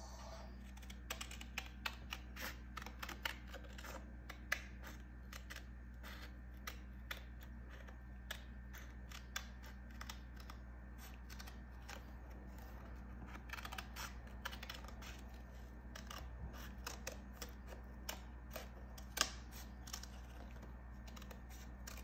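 Scissors snipping through a photo print: soft, irregular clicks and snips of the blades and paper, in bursts with short pauses, over a faint steady low hum.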